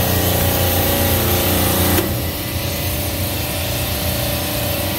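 Steady drone and hum of a supermarket refrigeration compressor rack's running machinery, with a single click about two seconds in.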